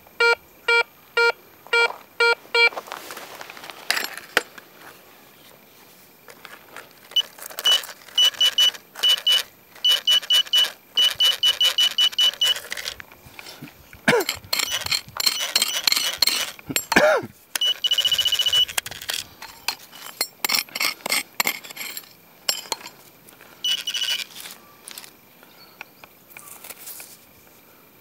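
Metal detector signal tones sounding over a buried target: evenly spaced low beeps, about three a second, then stretches of rapid high-pitched beeping and one held high tone, mixed with scraping and clicking as gravelly soil is dug.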